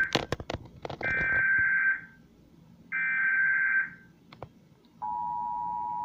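Emergency Alert System tones from a TV speaker: the end of one data burst of the alert header, then two more bursts about a second long with a second's gap between them, and a scatter of clicks near the start. About five seconds in the steady two-tone attention signal begins.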